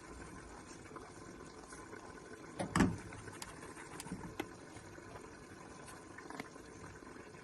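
A single dull knock about three seconds in, followed by a few light clicks, over a steady low background hum.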